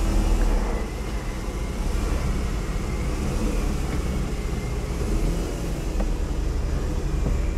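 Car running and moving slowly, a steady low rumble of engine and tyres heard from inside the car.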